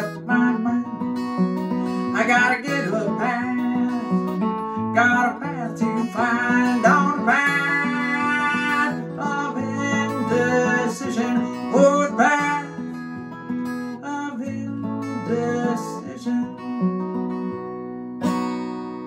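Strummed acoustic guitar with a woman singing long, sliding notes over it through the middle. Near the end a final chord is strummed and left to ring out.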